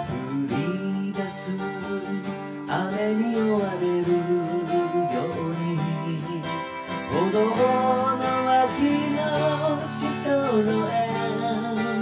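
Gibson acoustic guitar strummed and picked with a pick, ringing chords, with a voice singing a melody over it.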